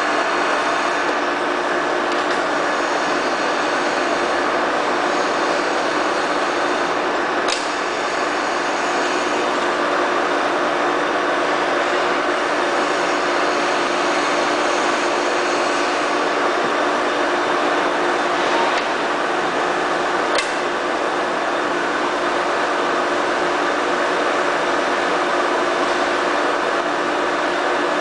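FAT 630 straight-bed lathe running under power, a steady mechanical running sound with a constant hum, and two short clicks partway through.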